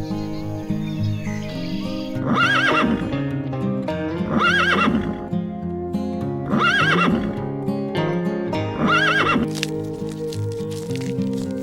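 Horse whinnying four times, each call alike and about two seconds apart, over background music.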